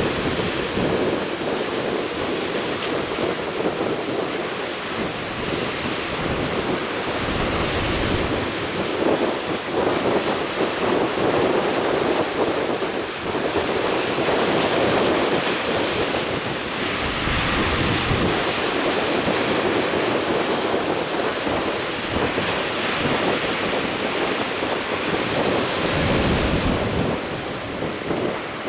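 Strong wind blowing across the microphone over the rush of a rough sea, with heavier gusts buffeting the mic three times.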